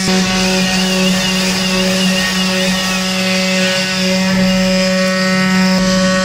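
CNC wood-carving router running steadily as it cuts into wood: a constant motor hum under a cutting hiss. A higher whine wavers up and down in pitch during the first half.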